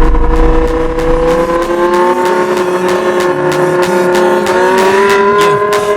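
The BMW M5 E60's 5.0-litre V10, with a loud aftermarket exhaust, held at high revs while the car accelerates hard. The engine note climbs slowly and evenly.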